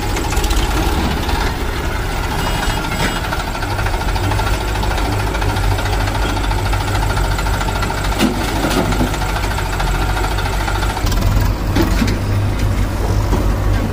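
Diesel engines of an HMT 3522 tractor (2340 cc) and a JCB 3DX backhoe loader running together in a steady, low chugging, with a few short knocks from the digging work later on.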